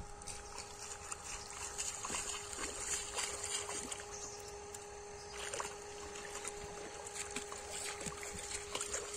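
Feet wading and splashing through shallow, muddy pond water in irregular steps, over a steady faint hum.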